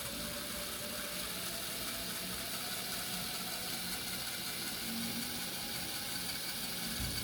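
Small brushed DC motor running under Arduino control through an L293D driver, a steady hissing whir with a whine that creeps up in pitch over the first few seconds as the motor speeds up.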